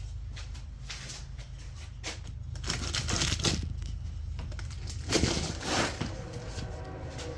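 Cardboard packaging being torn and crumpled as an anvil's shipping box is opened, in two loud spells of rustling and tearing.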